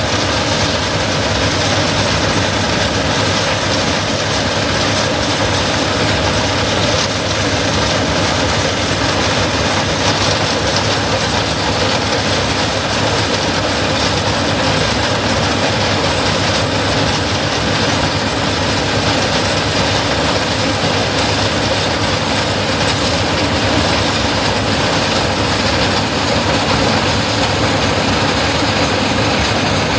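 Corn-harvest machinery running steadily: a heavy diesel engine drone under a continuous mechanical rushing rattle.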